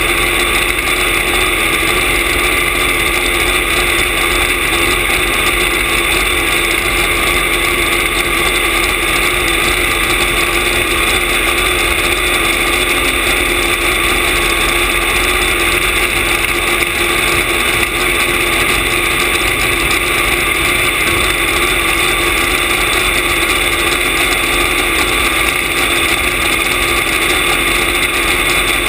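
Supercharged engine of a nostalgia top fuel dragster idling steadily at a constant speed, heard close up from a camera mounted on the car's chassis.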